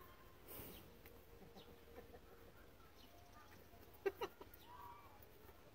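Near silence with a few faint, short animal calls, two brief ones close together about four seconds in.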